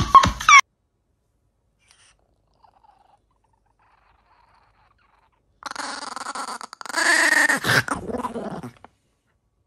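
A small chihuahua growling over its food in two stretches, the second louder and longer, after several seconds of near silence.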